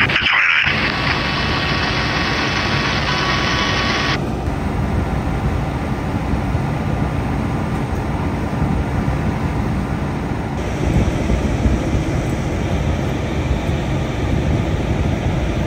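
Fire engines' diesel engines running steadily at the scene, a continuous low rumble. A brighter hiss lies over it for about the first four seconds, then cuts off abruptly.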